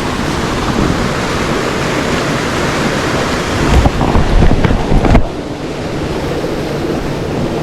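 Steady rushing of creek water pouring over a waterfall. About four seconds in, a second and a half of loud low buffeting on the microphone breaks over it and cuts off suddenly.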